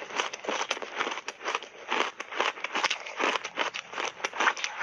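Crunchy coloured ice being chewed in big bites, close to a clip-on microphone: dense, irregular crunches, several a second.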